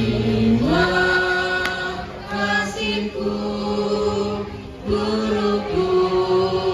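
Students singing together into microphones over a PA, in long held notes with a step up in pitch about half a second in and new phrases starting about two and five seconds in.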